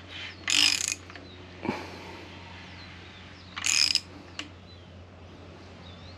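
Ratchet wrench clicking in two short bursts, about half a second in and again near four seconds, with a single click in between, as the K24A's crankshaft is turned slowly to bring a piston up to the deck for measuring.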